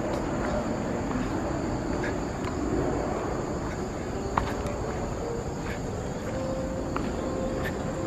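Insects chirring steadily in woodland, over a low rumble, with a few sharp footstep clicks on the trail steps in the second half.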